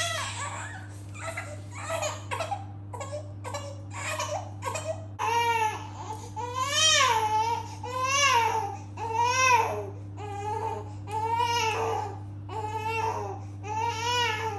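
Newborn baby crying: short fussy sounds at first, then from about five seconds in a run of full cries, each rising and then falling in pitch, about one a second.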